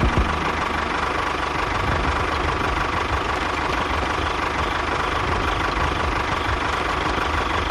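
A small motor running steadily with a thin constant whine, with a couple of short knocks right at the start.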